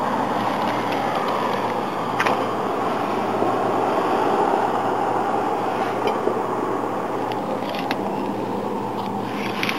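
Steady running noise of an idling vehicle engine, with a low hum under it. A few light clicks come on top as the plough's plastic wiring connector is handled.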